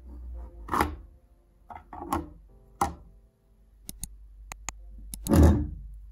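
A vintage metal crank pencil sharpener is handled on a wooden table: knocks as its plastic shavings box is pulled off and set down, a quick run of sharp metal clicks, and a heavier thud near the end, the loudest sound. Soft background music fades out in the first second.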